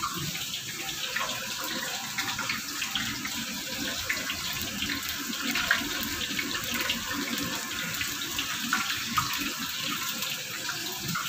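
Battered food deep-frying in a wok of hot oil: a steady sizzle with fine crackling throughout.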